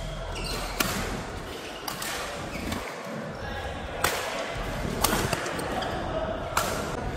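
Badminton rackets striking a shuttlecock in a rally: sharp single hits a second or more apart, some loud and near, others fainter from across the net.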